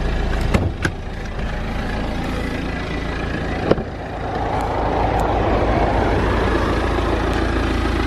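BMW car engine idling steadily. Two sharp clicks come about half a second apart near the start as the bonnet release is pulled, and a single sharp knock follows a little before halfway. The idle grows louder in the second half, heard from outside the car near the front.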